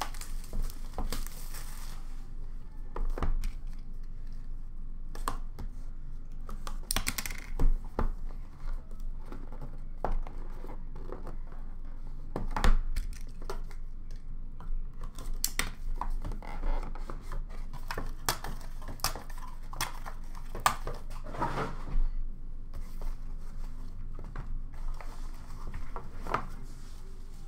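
Plastic shrink-wrap crinkling and tearing as a sealed trading-card hobby box is unwrapped. Then the cardboard lid and the inner card boxes are handled, with scattered knocks and taps on a glass countertop.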